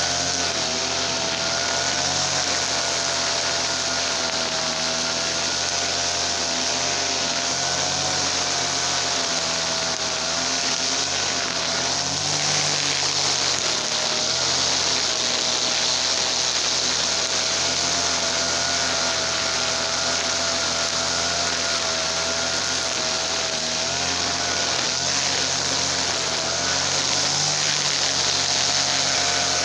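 TL33 two-stroke gasoline brush cutter engine running at high speed, a steady high buzz whose pitch wavers slightly as the load changes.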